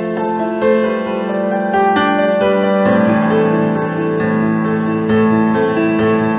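Background instrumental music: a melody of overlapping pitched notes struck one after another.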